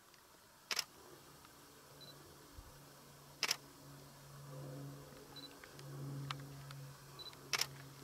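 Camera shutter, most likely a single-lens reflex, firing three times a few seconds apart, each a quick double click, with a low steady hum underneath.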